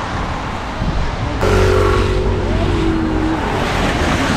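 Road traffic on a wet street: a steady hiss of passing cars, with a louder vehicle coming through about a second and a half in, its pitch dropping slightly a little later.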